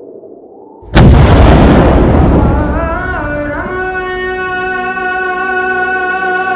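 A sudden loud boom, an explosion effect, about a second in; its rumble fades as a long held note of music comes in, wavering in pitch at first and then steady.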